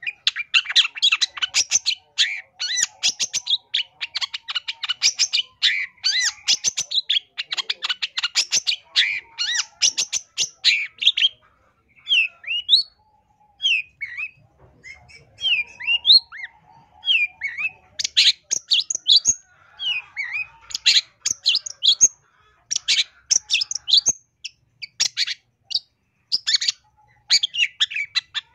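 Long-tailed shrike (cendet) singing a fast, varied song packed with mimicked phrases: dense runs of rapid chirps and trills. About twelve seconds in it breaks into separate slurred whistled notes, then turns dense and chattering again.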